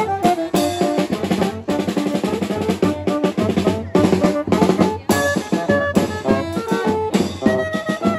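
Dance music from a band, the drum kit prominent with a busy snare and bass-drum rhythm under running melody lines.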